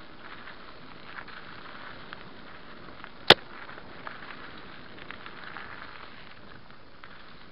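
Mountain bike rolling fast down a dirt track, heard from a helmet camera: a steady rushing noise with small scattered rattles and clicks, and one sharp, loud crack a little past three seconds in as the bike jolts.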